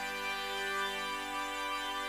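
Church organ playing slow, held chords of a hymn.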